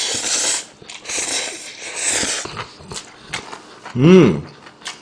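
A person slurping black-bean-sauce (jjajang) ramen noodles from a bowl in loud, noisy sucks for the first couple of seconds, then giving a short hum that rises and falls through a full mouth about four seconds in.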